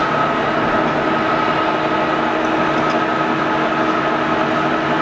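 Clausing-Metosa C1340S engine lathe running at a fast spindle speed in its high range, with the power feed engaged. It makes a steady whine of gears and motor that holds one pitch.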